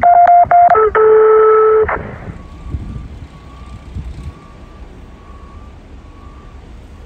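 Radio scanner alert tones: a few short, loud beeps followed by a longer, lower steady tone, together about two seconds. After that a faint beep repeats about once a second over low traffic noise.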